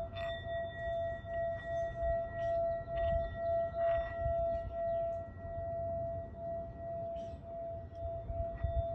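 A steady ringing tone with fainter higher overtones, its loudness pulsing gently, over a low rumble.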